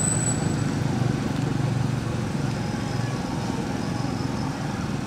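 Steady low outdoor rumble, with a thin high-pitched tone in the first second.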